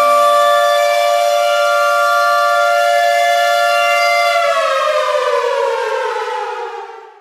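Air raid siren sounding a steady two-tone chord, then about four seconds in its pitch falls away as it winds down, fading almost to nothing at the end.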